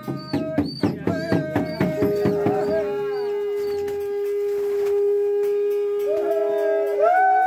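A drum beaten about three times a second, with a jingling ring on each beat, fades out after about three seconds. Under it, long overlapping howls take over: one is held at a steady pitch for about five seconds, while others slide down in pitch and rise again near the end.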